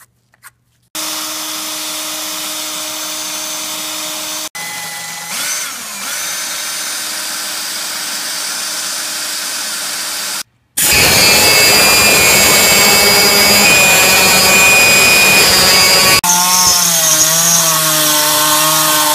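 Handheld power drill spinning a gold twist bit into the steel strut tower, enlarging a hole by stepping up bit sizes. It runs in several stretches, loudest from about eleven seconds in, and its pitch wavers near the end.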